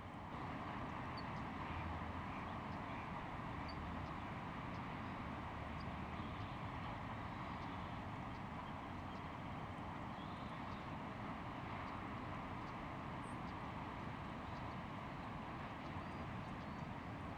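Marsh ambience at dusk: a steady background rush with faint, short bird calls scattered through it.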